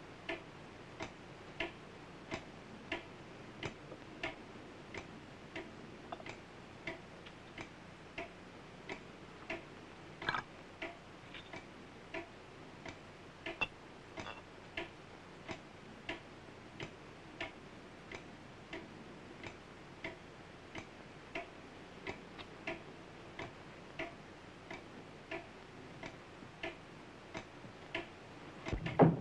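A clock ticking steadily, about three ticks every two seconds, with a few faint clinks in between. One loud thump comes just before the end.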